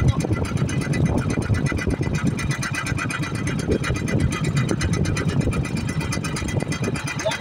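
A small engine running steadily, with an even, rapid pulsing.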